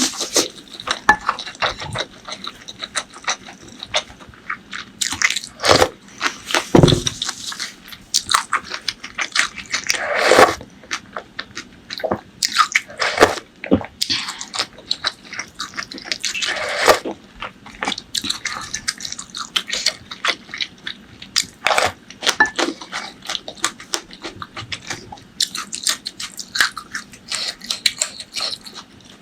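Close-miked eating: wet chewing, lip smacks and bites of food, with a few longer, louder wet mouth sounds about ten and seventeen seconds in.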